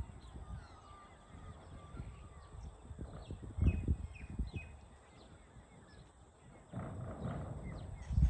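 A cow lowing briefly about two-thirds of the way in, over small birds chirping. There are a couple of low bumps, one around the middle and one at the very end.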